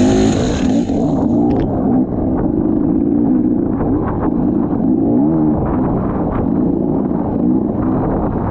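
Dirt bike engine running under changing throttle while riding a trail, its pitch rising and falling with scattered clicks and knocks from the bike over the ground.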